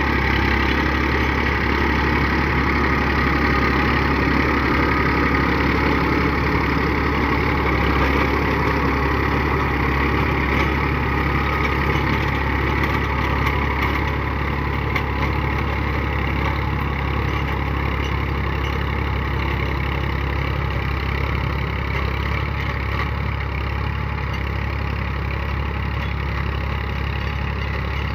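Diesel farm tractor engine running steadily under load as it drives a rear-mounted rotary tiller through tall grass and soil. The sound eases slightly in the second half.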